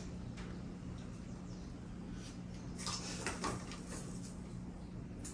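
Soft rustling and a few light clicks around the middle as fabric and small items are handled on a bed, over a steady low hum.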